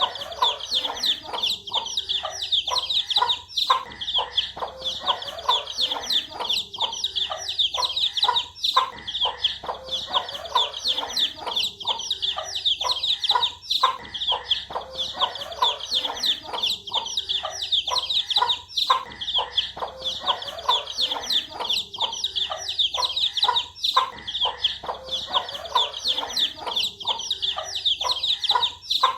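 A brood of baby chicks peeping continuously, many short high falling chirps overlapping, with lower clucks mixed in. The pattern repeats about every five seconds.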